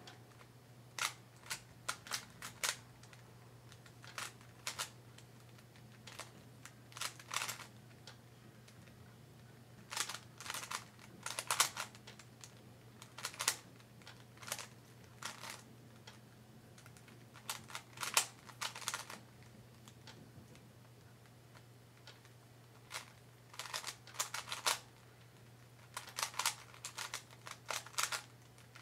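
Rubik's Cube being turned quickly by hand during a solve: runs of plastic clicking and clacking as the layers turn, in bursts of a second or two separated by short pauses.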